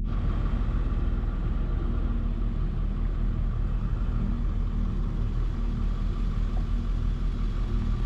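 Car driving, a steady low road and engine rumble with a faint even hum.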